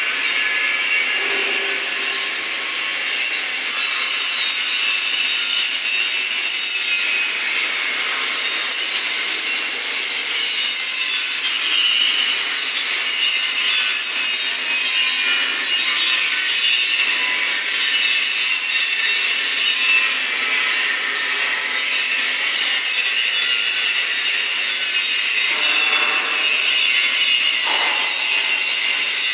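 Loud, steady, rasping hiss, mostly high-pitched, with a few brief dips in level.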